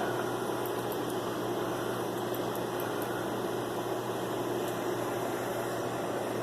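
Steady whirr and hiss of a running computer's cooling fan, with a constant low hum.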